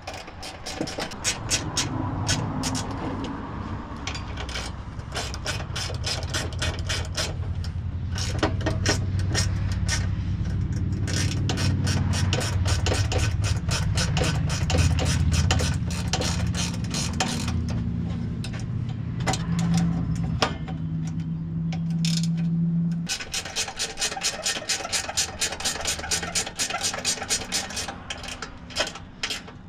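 Hand ratchet clicking in quick runs as bolts are driven, with scrapes and knocks of tools on metal, over a low steady mechanical hum that cuts off about two-thirds of the way through.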